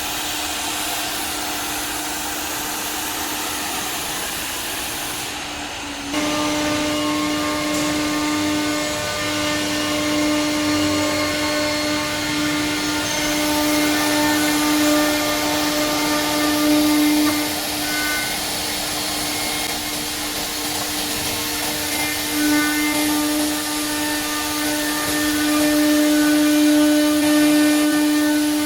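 Semac SM 2500A CNC router jigsaw running, with a steady rushing hiss. About six seconds in, the high-speed router spindle's steady whine comes in, swelling and easing as the bit cuts through wood.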